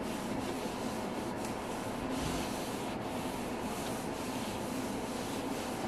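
Cloth rubbing back and forth over the top of a white cube shelf, a run of repeated wiping strokes.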